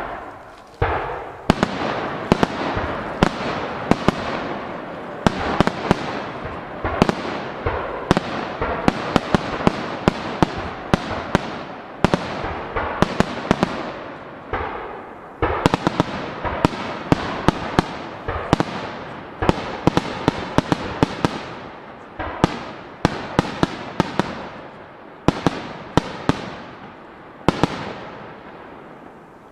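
Japanese starmine fireworks barrage: aerial shells launching and bursting in quick succession, sharp bangs several a second over a continuous rumble of echoes. The barrage thins out and dies away in the last couple of seconds.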